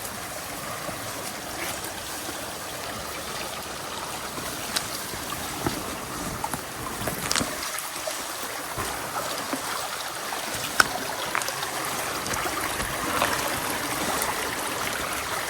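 Creek water running steadily over rocks, with scattered sharp clicks and knocks on top, the sharpest about eleven seconds in.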